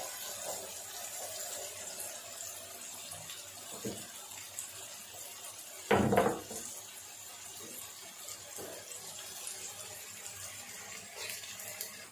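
Sliced onions sizzling in hot oil in a frying pan, a steady hiss. A single loud clatter about six seconds in, louder than the sizzle.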